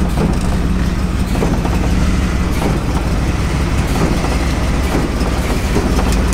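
Old gasoline-engined tow truck running, a steady low engine rumble.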